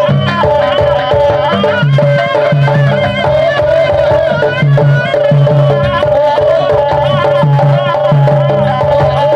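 Jaranan buto accompaniment music: repeated low drum patterns under a wavering high melody, with one steady held note running through it.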